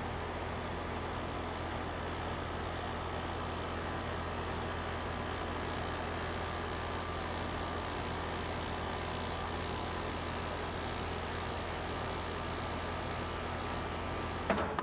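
A 2013 4-ton Rheem Classic heat pump running in cooling mode, its Copeland scroll compressor humming steadily along with the condenser fan. Near the end a sharp click comes as the unit shuts down, and the compressor hum cuts off abruptly.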